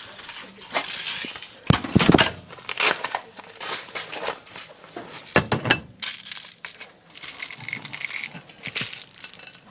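Rustling and crinkling noise, broken by several sharp clicks and knocks, the loudest a little under 2 seconds in and again at about five and a half seconds.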